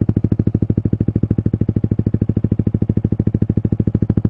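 Yamaha MT-15's 155 cc single-cylinder engine idling through an aftermarket Akrapovic exhaust: a steady, even, deep exhaust beat.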